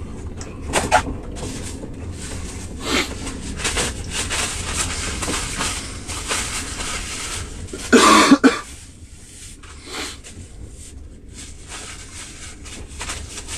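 A man coughs hard about eight seconds in, the loudest sound, with a few shorter coughs or knocks earlier, over the steady low rumble of a train carriage.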